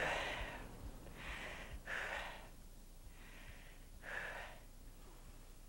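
A woman breathing hard after aerobic exercise: about five audible breaths, roughly one a second, faint and fading out after about four and a half seconds.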